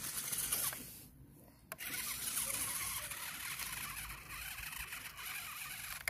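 Small model tractor's drive running as it crawls over loose gravel, with the tyres grinding and stones clattering. It stops briefly about a second in, then starts again with a sharp click and keeps running.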